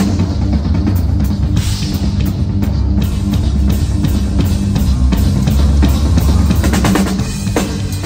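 Electric bass guitar and drum kit playing a jam together: a bass line under kick drum, snare and cymbal hits.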